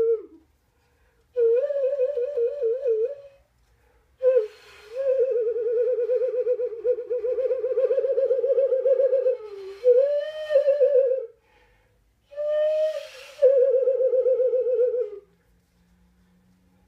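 Mexican clay whistle (ocarina-type) blown in several phrases: a single breathy, fluting tone around one pitch with a fast warbling vibrato and small upward bends, broken by short pauses. The longest phrase lasts about five seconds.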